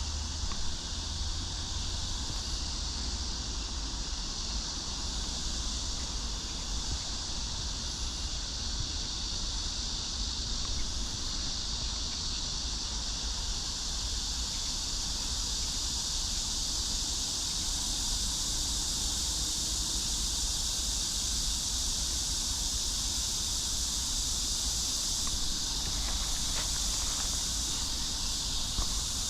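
Steady, unbroken chorus of insects chirping, high-pitched, with a constant low rumble underneath.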